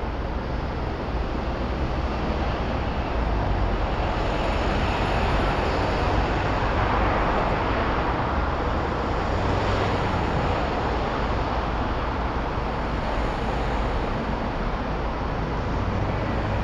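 Urban road traffic noise picked up by an outside-mounted camera on a vehicle standing in a queue: a steady low engine rumble with cars passing in the opposite lane, swelling a little about halfway through.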